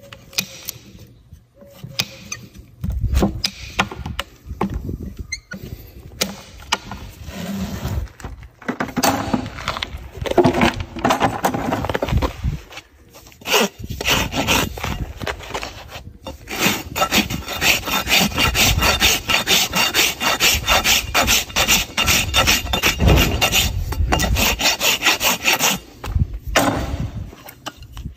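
Farrier's flat hoof rasp filing across the bottom of a horse's hoof in a steady run of quick, repeated strokes through much of the second half. Earlier, irregular scraping and prying as the old shoe is worked off with pull-off tongs.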